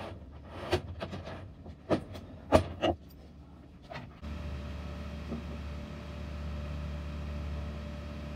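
Several sharp metallic knocks and clatters as a wrench works on the aluminium roller-furling extrusion, the loudest about two and a half seconds in. After about four seconds they give way to a steady low hum with a faint whine.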